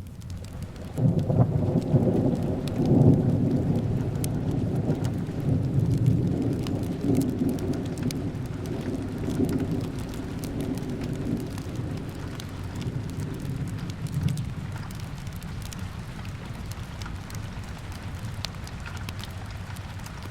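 A long rumble of thunder breaks in about a second in, swells a few times and rolls away over some ten seconds, over steady rain with a light crackle of a wood fire.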